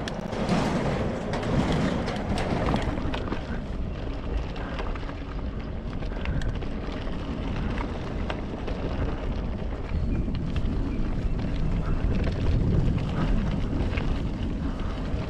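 Wind buffeting the camera microphone on a moving mountain bike, over the rumble of its knobby tyres rolling on a dirt trail, with frequent small clicks and rattles from the bike.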